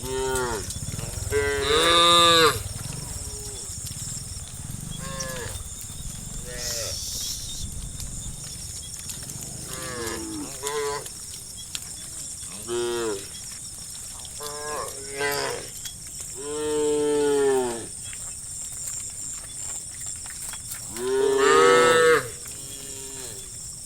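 A herd of cattle mooing: a string of separate calls from several animals, some short and some long, with three long, loud moos about two seconds in, about two-thirds of the way through and near the end.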